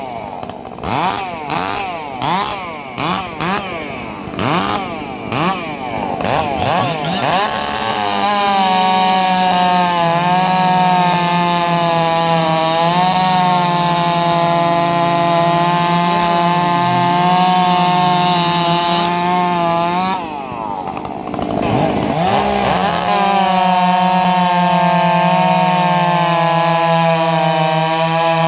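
Two-stroke chainsaw engine blipped up and down repeatedly, then held at high revs with a steady, high-pitched whine. About two-thirds through it drops off briefly and revs back up to high speed.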